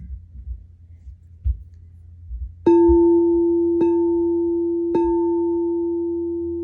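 Sound bowl struck three times, about a second apart, starting a little over two and a half seconds in, and left ringing with one steady low tone and a fainter higher one. Before it, irregular low thuds of children running on the floor above.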